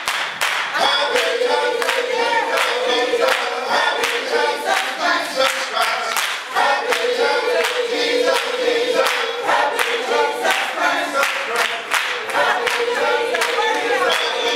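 Choir singing together, with the singers clapping their hands in a steady rhythm.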